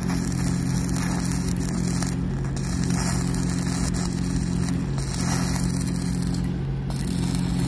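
Electric arc welding on steel rebar: a steady crackling sizzle from the arc that cuts out briefly three times, over a steady low machine hum.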